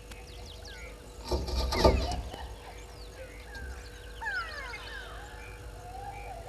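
Wild birds calling in dry bush: a scatter of short chirps and several downward-gliding whistles, busiest about four to five seconds in. Between about one and two seconds in comes a louder, harsh crackling burst, over a faint steady hum.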